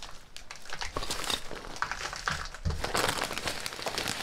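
Kraft-faced fiberglass insulation being pulled out of a wall cavity by hand: the paper facing crinkles and tears in a run of irregular rustles and crackles that grows busier from about a second in.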